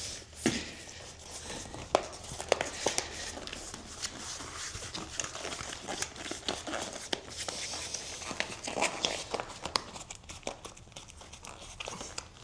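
Hands fitting an inner tube into a bicycle tyre and pressing the tyre bead back onto the rim: irregular rubbery rubbing and rustling with scattered sharp clicks.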